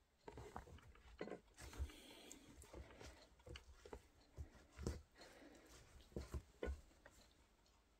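Faint, irregular soft thuds and scuffs of feet in sauce-smeared sneakers treading and shifting on a cloth towel over carpet.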